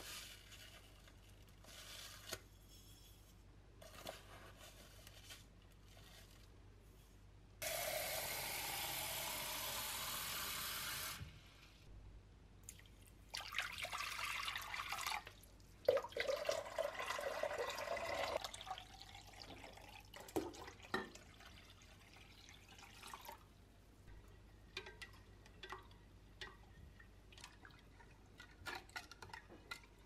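Water poured into a glass bowl to make up a sodium percarbonate soak: a steady rush of running water for about three seconds, then two more spells of pouring and sloshing, with light clicks and clinks of handling in between.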